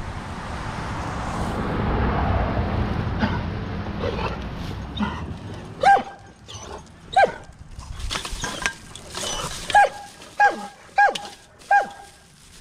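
Dogs barking: six short, sharp barks in the second half, over the rumble of a slow-moving vehicle and wind on the microphone.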